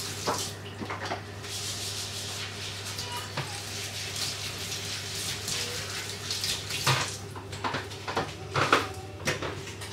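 Kitchen tap running while gloved hands are rinsed under it, the water splashing unevenly, with a few sharp knocks near the end.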